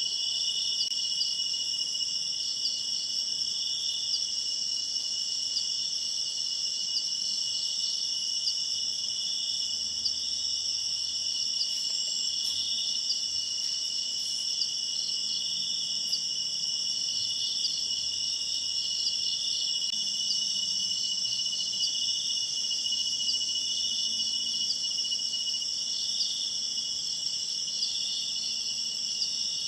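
Night insects, crickets, chirring in a steady overlapping chorus at several high pitches, with a slow pulsing about once a second.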